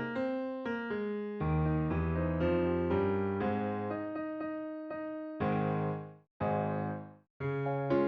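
Background piano music: single notes and chords struck and left to die away. The sound cuts out twice for a moment, about six and seven seconds in.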